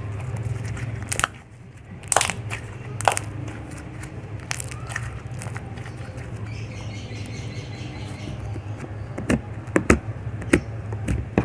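Hands squeezing and stretching blue toothpaste slime, giving sticky snaps and pops at irregular moments, several louder ones near the end, over a steady low hum.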